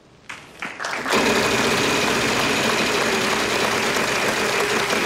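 Game-show prize wheel spinning, its flapper clicking rapidly against the pegs, over studio audience applause. It starts abruptly about a second in and keeps going.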